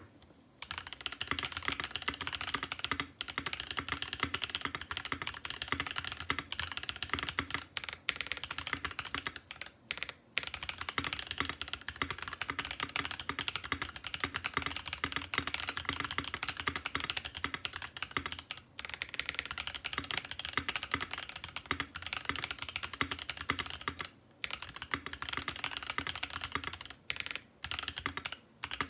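Continuous fast typing on a Think 6.5 V2 mechanical keyboard with lubed Boba U4T tactile switches, FR4 plate, aluminum-and-polycarbonate case and PBT keycaps, a dense run of keystrokes broken by a few short pauses.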